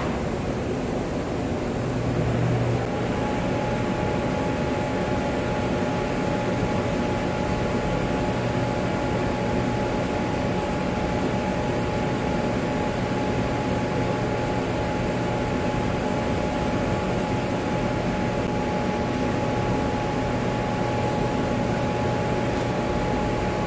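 TIG welding arc on 1/8-inch stainless steel plate, a fusion bead with no filler. It gives a steady hiss with a thin high-pitched whine, over a steady machinery hum. The whine cuts off about 21 seconds in as the arc is broken.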